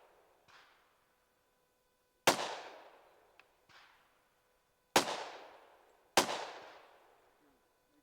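Three loud gunshots at a shooting range, the first two about two and a half seconds apart and the third about a second after the second, each ringing off in a long echo. Two fainter shots fall between them.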